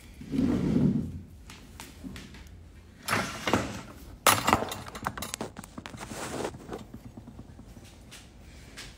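Phone handling noise: a dull thump about half a second in, then a run of sharp knocks and clatter a few seconds later as the phone is moved about and propped up.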